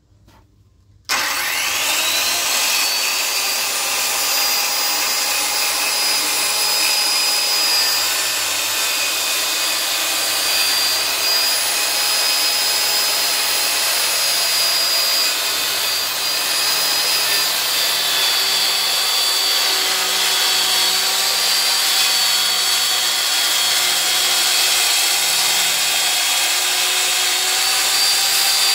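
Corded circular saw starting about a second in, its whine rising as the blade spins up, then running steadily under load as it rips lengthwise through a cedar slab. The whine wavers slightly as the saw is fed along the cut.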